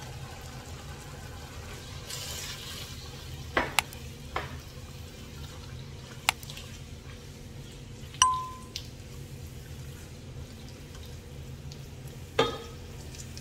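A wooden spoon stirring boiled beef and stock into tomato sauce in a non-stick pot, with a handful of sharp knocks and clinks of the spoon against the pot. One clink about eight seconds in rings briefly. A steady low hum runs underneath.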